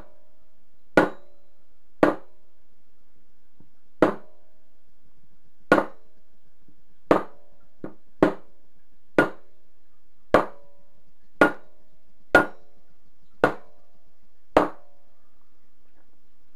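Hammer blows on a metal punch driving the bearing out of a heated Suzuki GS500 rear sprocket carrier: about a dozen sharp, slightly ringing metallic strikes, roughly one a second, with a longer pause after the second.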